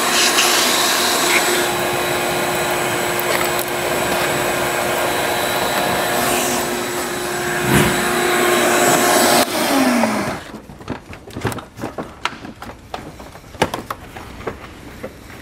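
Vacuum cleaner running steadily with a whine, sucking debris out of a car's front oil cooler. It is switched off about ten seconds in and the motor winds down, followed by light clicks and knocks.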